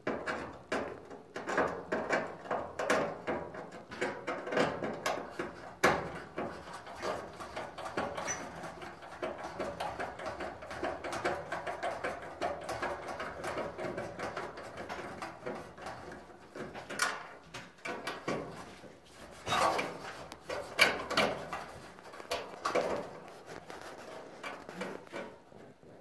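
Hand screwdriver working screws out of a dryer's sheet-metal heating element housing: continual scraping and clicking of metal on metal, with a few sharper knocks.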